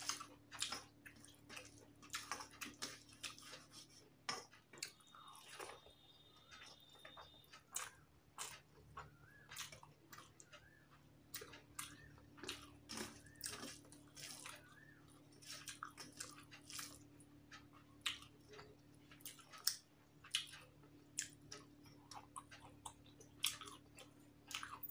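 Faint eating sounds: wet chewing and lip-smacking clicks while fingers mix rice and curry on a stainless steel plate, over a low steady hum.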